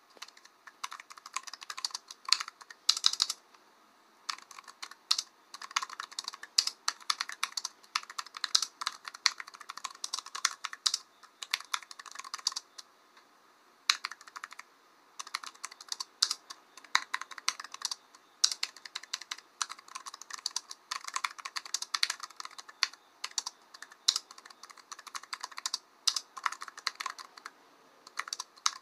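Typing on a computer keyboard: quick, irregular key clicks in bursts of a few seconds, with short pauses between them.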